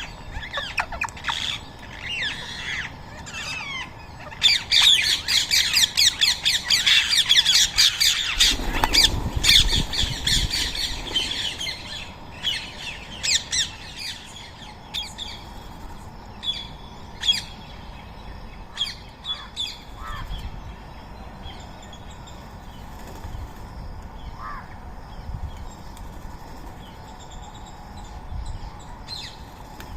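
Rose-ringed parakeets calling: a dense run of many overlapping calls about four seconds in that lasts several seconds, then fewer, spaced single calls.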